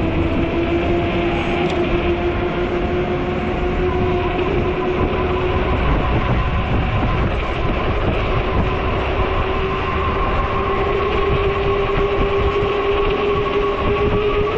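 Ecotric fat-tire e-bike's 48V hub motor whining under power, a steady tone that slowly rises in pitch as the bike gathers speed. Strong wind rumbles on the microphone underneath.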